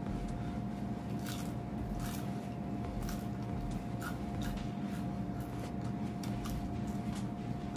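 Faint, scattered small clicks and soft rustles, about a dozen of them, over a steady high hum.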